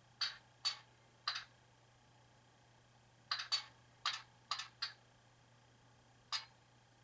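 Faint, short clicking pops from the miniature speakers of the idling model locomotives' sound decoders, about eight of them at irregular spacing, some in quick pairs, over a low steady hum.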